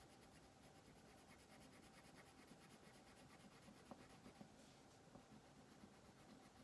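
Faint scratching of a wax crayon shading back and forth on paper, with a few light ticks a little past the middle.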